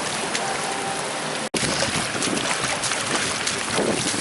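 Steady hiss of heavy rain, which cuts out for an instant about a second and a half in.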